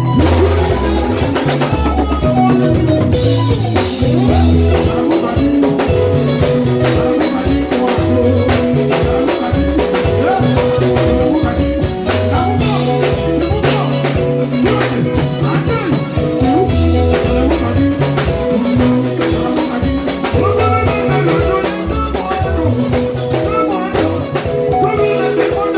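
Band playing Congolese rumba: guitars weaving melodic lines over moving bass notes and a drum kit keeping a steady beat.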